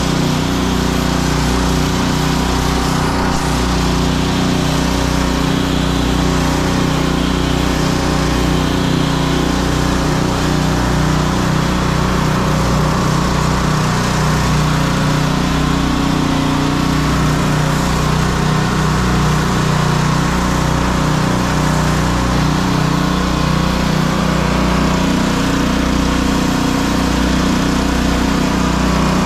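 Gas pressure washer engine running steadily under load, with the hiss of high-pressure water jets spraying the wooden deck boards.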